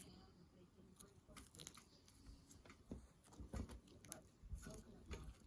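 Faint, irregular clicking and crackling of green glitter slime being squeezed and poked by hand.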